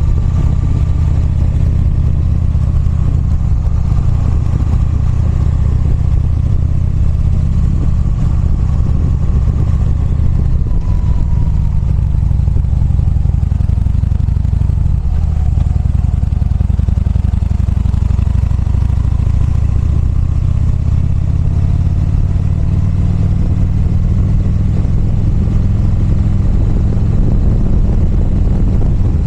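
Motorcycle engine running while riding, under a heavy rumble of wind on the microphone. The engine sound eases briefly about halfway through and then builds again.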